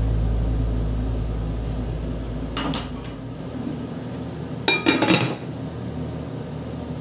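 Kitchenware clattering: a metal ladle clinks against a nonstick cooking pot about two and a half seconds in, then a glass lid clatters onto the pot about five seconds in. A low hum fades out over the first three seconds.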